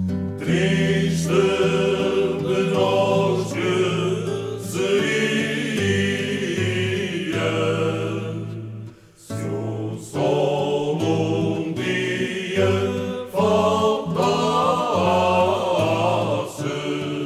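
Music: a song with voices singing a melody over a steady accompaniment, easing off briefly about nine seconds in.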